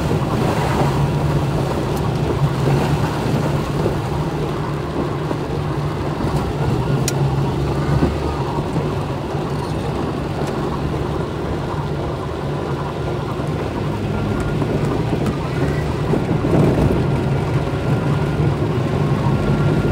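Heavy rain on a car's roof and windows, heard from inside the moving car over the steady low hum of the engine and tyres on the wet road.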